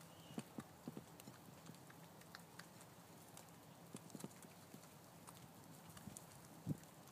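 Groundhog chewing grass up close: faint, irregular crunching clicks, a few a second, with a louder crunch near the end.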